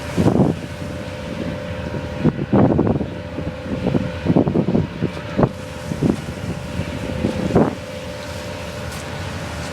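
A car ferry's engines run with a steady hum, while gusts of wind buffet the microphone about five times.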